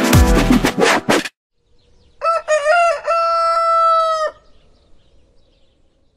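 Electronic intro music cuts off about a second in. A moment later a rooster crows: a few short rising notes and then one long held note, ending abruptly about two seconds later.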